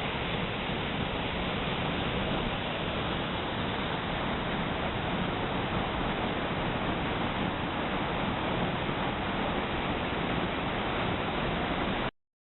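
Waterfall pouring: a steady rush of falling water that cuts off abruptly near the end.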